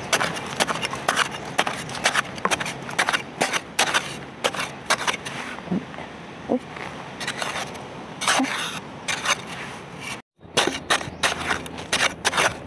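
Narrow hand spade chopping and scraping into dry soil in quick, irregular strokes while digging out a ground-cricket burrow. The sound drops out completely for a moment a little after ten seconds.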